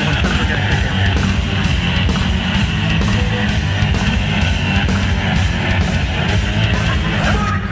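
Loud heavy metal music with electric guitar, playing without a break.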